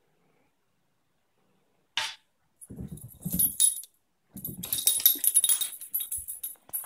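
Near silence, then a short sharp sound about two seconds in, followed by a small dog and a kitten scuffling at play, with the dog's collar tags jingling in quick irregular bursts.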